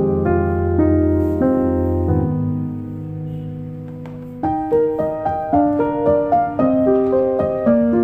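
Background piano music: slow held chords that fade away, then from about four and a half seconds in a quicker line of single notes with a clear attack on each.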